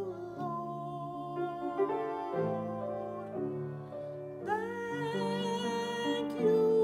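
A woman sings solo to grand piano accompaniment. Her voice swells loud about two-thirds of the way in, on held notes with vibrato.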